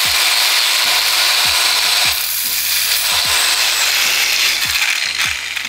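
Angle grinder cutting into a steel seat-mounting bolt: a loud, steady, hissing grind with a thin high whine on top.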